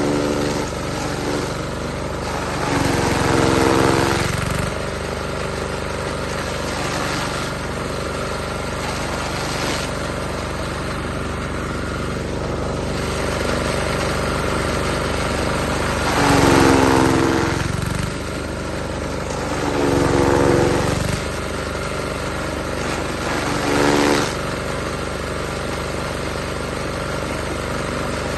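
Hay cutter running steadily with a constant mechanical hum. About four times it swells louder for a second or so, with a pitched tone in it.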